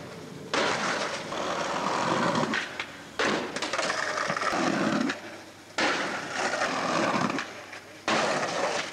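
Skateboard wheels rolling over street pavement in four stretches of two to three seconds each. Each stretch starts abruptly and tails off before the next.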